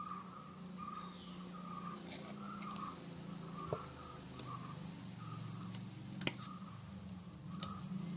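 A few sharp clicks of a spoon against a steel cake tin as thick batter is spooned in and spread, over a faint steady low hum and a short high chirp repeating about once a second.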